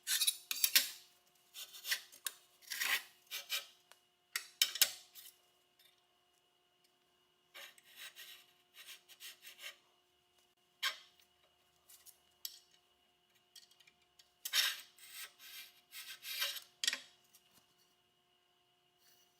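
Rasping strokes of a hand tool worked over aluminium, in irregular bunches with pauses. A faint steady hum lies underneath.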